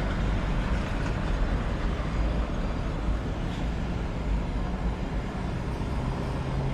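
Steady road traffic noise heard from a moving vehicle: a low rumble with a rushing hiss over it and no separate events.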